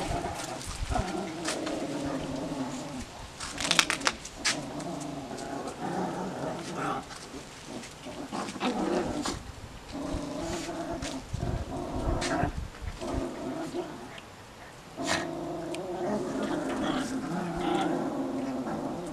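Two small dogs growling in play as they tug at a toy between them, in long growls of several seconds broken by short pauses.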